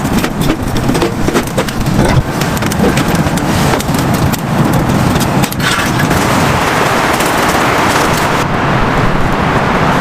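Heavy rain falling, with many drops striking a surface close by. The dense individual hits of the first half give way to a more even hiss in the second half.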